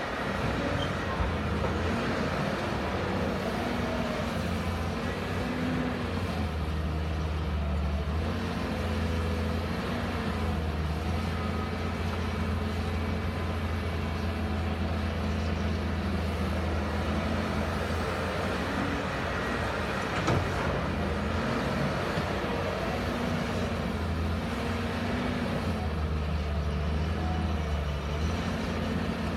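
CAT 320D excavator's diesel engine running steadily under working load, its note dipping and rising every few seconds as the hydraulics load it. A single short knock about twenty seconds in.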